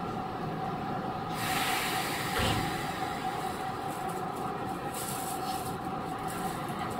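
Inside a Chiba New Town Railway 9100-series WN-drive car: a steady electrical hum. About a second in, a burst of air hiss ends in a low thump, and a shorter hiss follows near five seconds.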